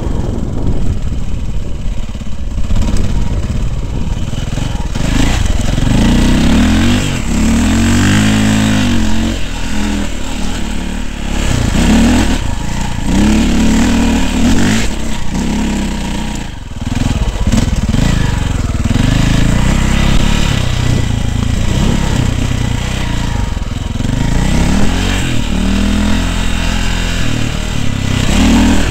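Dirt bike engine revving up and falling back over and over as the throttle is worked riding up steep, loose hillsides. The engine note briefly drops off about halfway through before picking up again.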